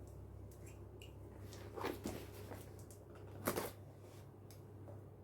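A parcel being opened by hand: packaging rustling and crinkling, with two louder crackles about two and three and a half seconds in, over a low steady hum.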